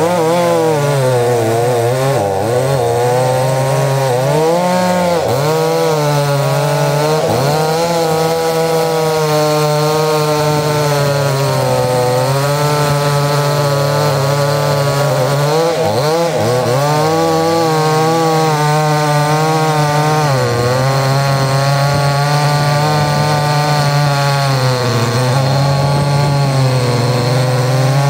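Two-stroke chainsaw running at high revs while cutting wood. Its pitch sags and recovers several times as the chain loads up in the cut.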